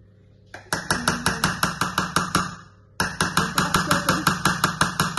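Rapid, evenly spaced sharp knocks, about seven a second, in two runs with a short break about halfway through.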